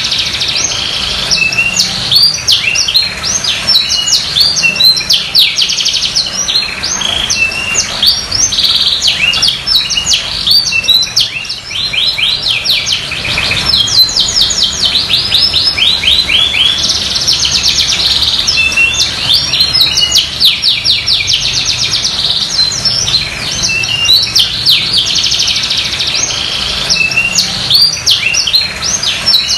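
Domestic canary in full song, singing continuously in long, fast trills and rolling chirped phrases.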